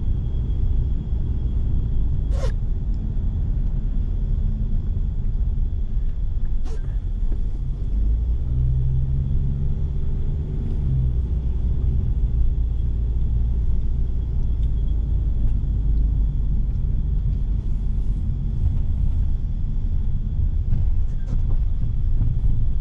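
A car driving along a road: a steady low rumble of engine and tyres, with a faint steady high tone above it. There are two sharp clicks, about two and seven seconds in, and a deeper engine note swells for a few seconds midway.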